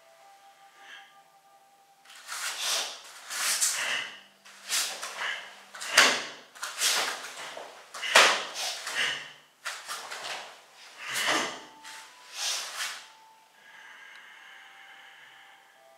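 Karate gi snapping and swishing as a Shotokan kata (Heian Yondan) is performed: about a dozen short, sharp whooshes, often in quick pairs, as punches, blocks and turns are thrown, starting about two seconds in and stopping near the end.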